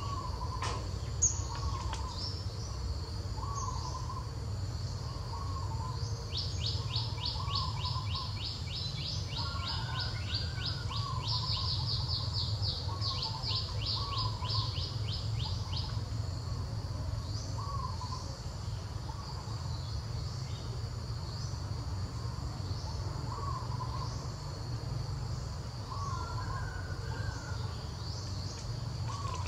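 Birds calling over a steady insect buzz: a short two-part call repeats every second or two, and from about six seconds in a rapid run of high descending notes, about three a second, goes on for some ten seconds. A low rumble sits under it all.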